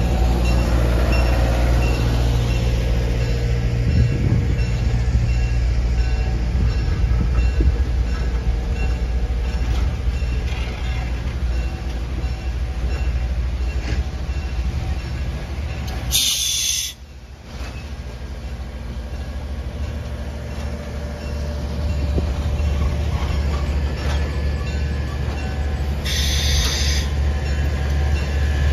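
Passenger coaches of a train rolling past, their wheels and trucks rumbling on the rails over a steady low drone. Two short, high hisses come, one about halfway through and one near the end.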